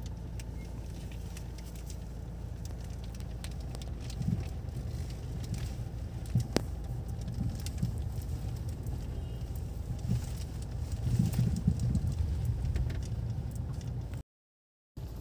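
Low, steady rumble of slow-moving traffic heard from inside a car's cabin, the car crawling beside heavy trucks, with a few sharp clicks and knocks from the car on a rough road. The sound cuts out for a moment near the end.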